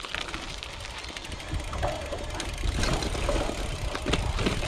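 Gravel bike riding fast over a rough, bumpy dirt trail: a steady rumble of tyres on the ground, with the bike rattling and clattering over the bumps, getting louder as it goes.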